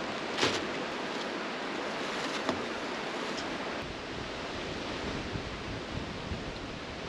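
Steady rushing noise, with a few light clicks and knocks from handling food and utensils.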